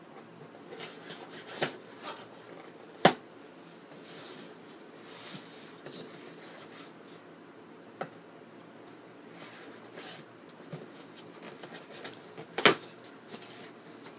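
Cardboard shipping box being opened by hand: tape and flaps rustling and scraping, with four sharp knocks, the loudest about three seconds in and near the end.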